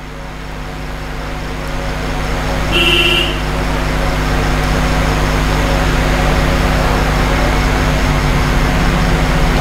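Road traffic noise that grows steadily louder, with a short vehicle-horn toot about three seconds in.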